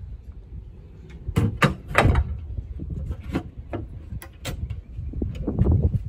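Sharp clicks and knocks of an RV basement storage door latch and its handle assembly being handled and fitted against the door, several in a row through the middle, with handling noise near the end.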